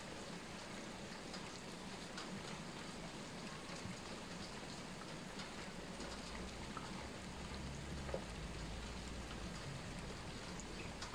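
Faint, steady patter of falling raindrops, a soft hiss with scattered drop ticks, as rain runs off after a shower. A low rumble comes in from about six to nine seconds in.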